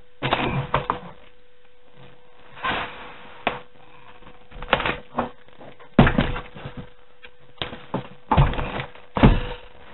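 A computer case and its cardboard box being handled on a table: a string of irregular thumps and knocks with scraping and rustling. The heaviest thuds fall about six seconds in and again near the end.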